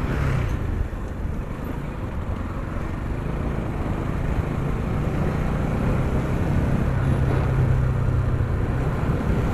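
Motorcycle engine running steadily while riding, heard from the bike itself, with road and wind noise. Just after the start there is a brief rush as an oncoming car passes close alongside.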